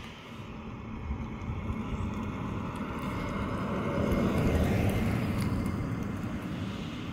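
A motor vehicle passing by: its noise builds to a peak about four to five seconds in, then fades away.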